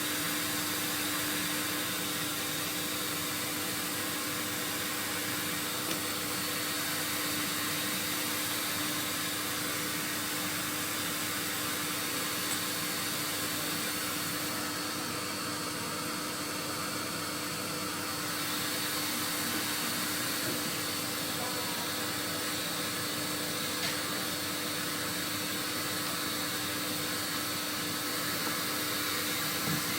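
Vacuum cleaner running steadily, a constant whooshing noise with a steady hum beneath it.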